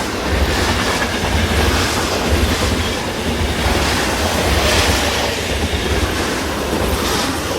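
Stock sound-effect recording of a train running on the rails: a steady low rumble with the clatter of the wheels.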